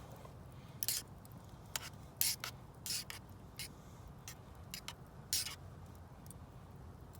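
Wood campfire crackling, with irregular sharp pops and snaps; the loudest come about two seconds in and again a little after five seconds.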